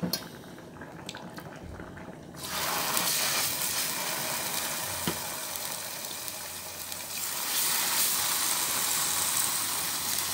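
Seasoned beef liver steaks sizzling in hot oil in a frying pan. The sizzle starts suddenly about two seconds in as the first steak goes into the oil, and grows louder a few seconds later as more steaks are added.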